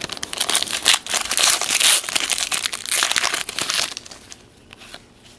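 Wrapper of a 2010 Panini Certified football card pack crinkling as it is torn open and handled: dense crackling for about four seconds, then dying down.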